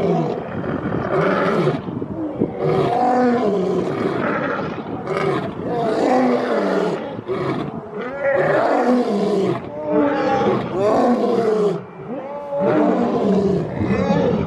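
Asiatic lions roaring, a long run of repeated calls following one another with only short breaks.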